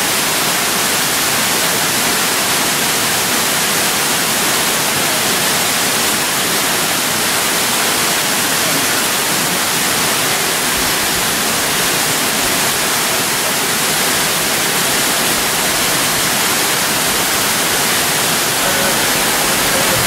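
Steady rushing hiss of falling water from a waterfall's cascades, loud and unchanging.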